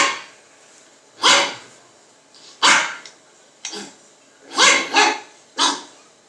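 A dog barking, about seven short, sharp barks spaced roughly a second apart, some coming in quick pairs.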